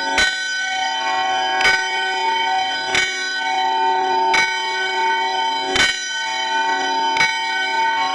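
A bell struck six times at an even pace, about one strike every second and a half, each strike ringing on with many overlapping tones into the next.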